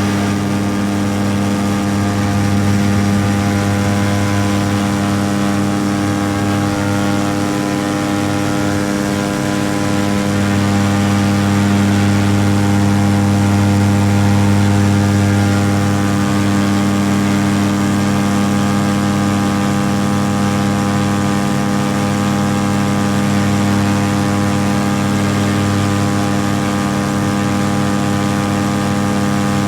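Paramotor engine and propeller running steadily in flight at a constant throttle, with a slight swell in loudness partway through.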